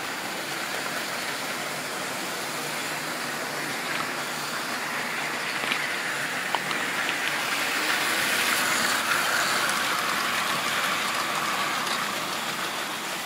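Model railway wagons rolling along the track: a steady whirring rattle of small wheels on the rails with a few light clicks about six seconds in, growing louder for several seconds as a train passes close by.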